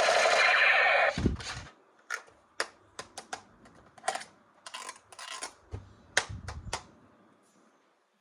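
Toy and packaging handling: a steady scraping noise that stops about a second in, a low thump, then a string of irregular sharp clicks and taps.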